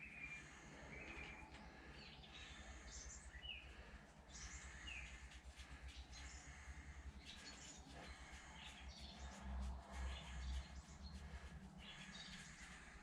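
Faint birdsong: small birds chirping repeatedly in short calls, over a steady low background rumble.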